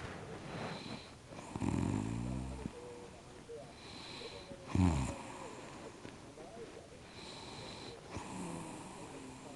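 Snoring in a slow rhythm: a long rasping snore about two seconds in, a short sharp snort near five seconds, and a fainter snore near the end. A thin high whistle sounds between the snores.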